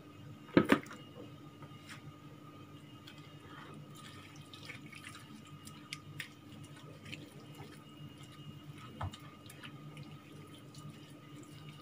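Hands rubbing a wet chermoula spice marinade into raw meat: soft wet squelches and small scattered ticks, with two sharp knocks about half a second in, over a steady low hum.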